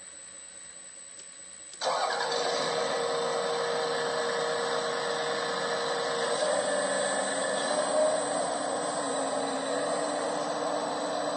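Servonaut SMB sound module on a 1/12-scale RC Caterpillar 336GC excavator, playing a simulated diesel engine through its speaker. It comes on suddenly about two seconds in and then runs steadily, its pitch wavering a little in the second half as the arm and bucket work.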